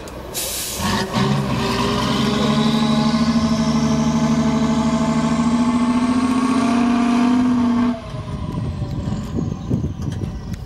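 Diesel engine of a six-wheel-drive trial truck working hard at high revs under full load up a steep climb, pouring black smoke, its note slowly rising in pitch with a faint high whistle rising alongside it. About eight seconds in, the engine note cuts off abruptly and the whistle winds down, leaving wind noise on the microphone.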